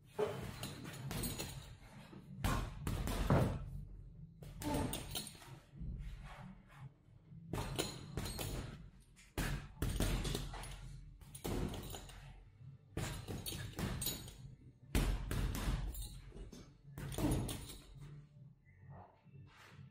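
Boxing gloves punching a leather Fairtex heavy bag: repeated dull thuds in quick combinations of two or three, with short pauses between them.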